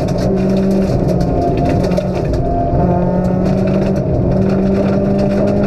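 Toyota Corolla AE82's 4A-GE twin-cam four-cylinder engine under hard driving, heard from inside the cabin. The engine note holds, then drops and picks up at a new pitch several times. Gravel rumbles and clicks against the underside throughout.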